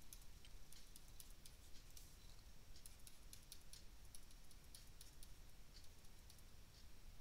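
Faint, irregular clicks and taps of a stylus writing on a tablet screen, several a second.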